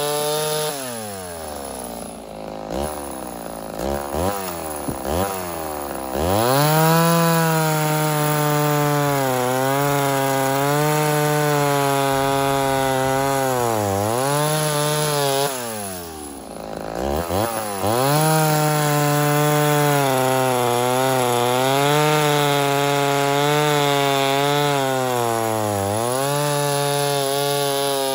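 Mildly ported Homelite Super XL Auto two-stroke chainsaw with a bow bar, running at full throttle through a log, its pitch dipping slightly under load. Twice it drops to idle and is blipped a few times before going back into the cut.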